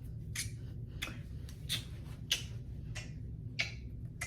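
A series of six short, soft swishing strokes, evenly spaced about two-thirds of a second apart.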